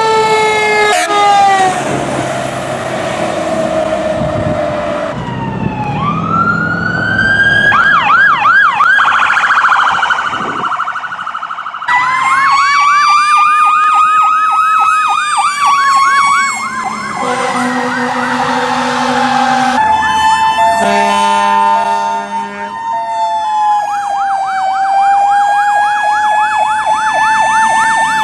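Fire engine sirens on emergency runs: electronic sirens winding up and down and switching to a fast warbling yelp. About two-thirds of the way through come several steady-pitched horn blasts.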